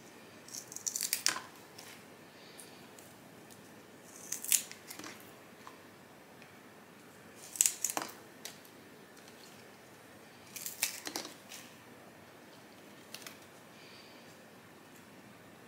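Pruning snips cutting through the leaf stalks of philodendron stem cuttings: five short bursts of crisp snips, about every three seconds, with quiet in between.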